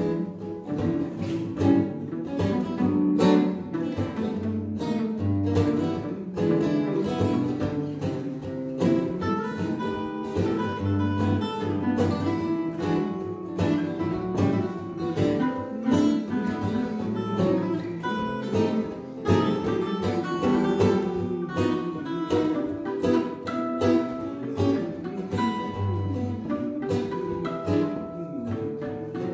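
An instrumental duet of acoustic guitar and a small mandolin-family plucked string instrument, playing a tune with quick picked notes over a steady bass line.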